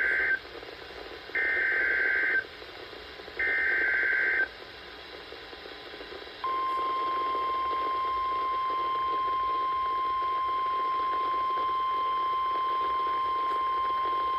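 NOAA Weather Radio Emergency Alert System signal. The end of one SAME header data burst is followed by two more, each a harsh digital warble about a second long and about two seconds apart. After a short gap, the single steady 1050 Hz Weather Radio warning alarm tone begins about six seconds in and holds.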